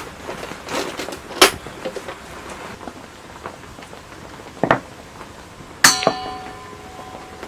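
A few light knocks and handling sounds, then a metal object strikes something with a loud clang about six seconds in. It rings on briefly in several tones before dying away.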